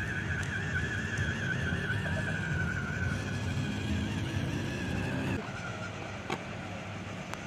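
WPL D12 mini RC truck's electric motor and gearbox whining as it drives, a wavering high whine over a low rumble, with a rising whine joining a little before the sound drops off abruptly about five seconds in to a quieter background hum.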